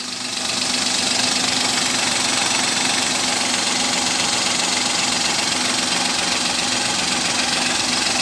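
Suzuki Alto 800's three-cylinder engine idling, a steady drone with a low hum. It swells louder about a second in, then holds steady.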